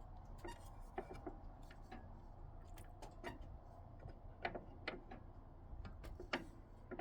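Faint, irregular clicks and light knocks over a low rumble, typical of hands handling loose machine parts.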